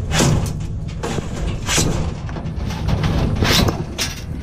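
Steel telescoping drawer-slide rail of a metal file cabinet being yanked out of the cabinet: a run of loud metallic bangs and clanks as it is forced out, with the biggest hits near the start and about three and a half seconds in.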